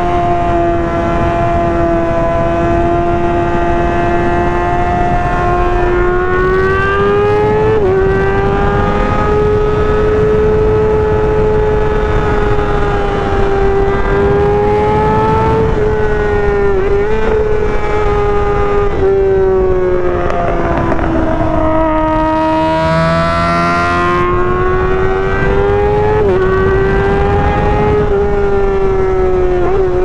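2023 Kawasaki ZX-6R's 636 cc inline-four engine running continuously at fairly steady revs. Its pitch drifts gently up and down with small brief dips, over a steady low rushing noise.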